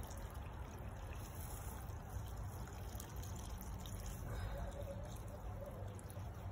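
Rainwater sprinkling from a plastic watering can's rose onto mulched soil and dry leaves, a steady soft splashing.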